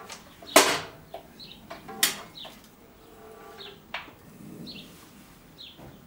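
Sharp metal clunks from the Evolution S355MCS chop saw's pivoting head being moved down and back up, the loudest about half a second in and two more about 2 and 4 seconds in. A bird chirps repeatedly between them.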